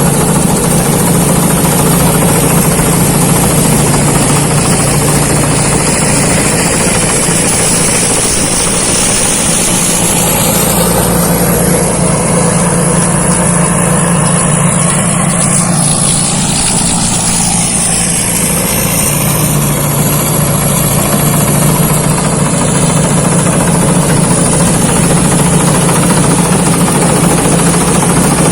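Rice combine harvester running steadily under load with a loud engine drone and machinery clatter; the drone weakens for several seconds about halfway through, then comes back.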